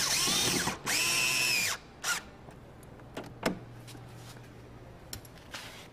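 Cordless electric screwdriver driving a screw into a door trim panel in two short runs of about a second each. Its motor whine rises and then holds steady before cutting off. A couple of faint clicks follow.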